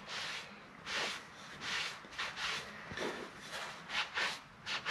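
Sponge wiping linseed oil onto a hand-carved elm wood bowl: short soft rubbing swishes, about two a second, unevenly spaced.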